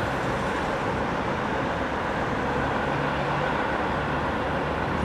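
ChME3 diesel shunting locomotive's six-cylinder engine running steadily as it hauls a rake of coaches slowly forward, with a low engine drone under a general rumble.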